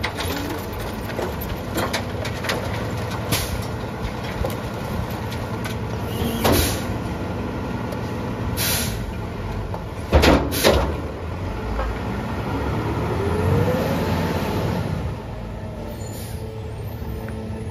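Peterbilt 520 garbage truck's diesel engine running up to drive the Heil rear loader's hydraulic packer through a cycle on a heavy load, with loud metal clanks and bangs from the packer blade, a bang about six seconds in and two close together around ten seconds. Later the engine note rises steadily as the truck pulls away.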